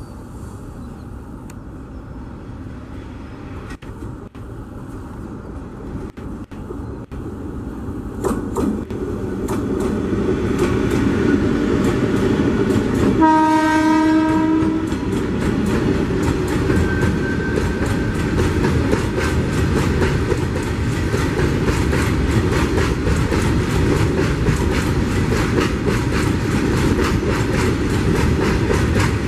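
Alstom WAG-12B electric freight locomotive approaching with a rumble that grows louder, sounding one horn blast of about a second and a half about halfway through, then passing close. Its BOXN open wagons follow with a steady clickety-clack of wheels over rail joints.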